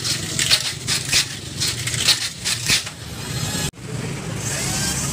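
Tamiya mini 4WD car running laps on a plastic track: a steady motor whir with repeated clattering about every half second as the car strikes the track walls. The sound cuts off abruptly about three and a half seconds in and a steadier whir takes over.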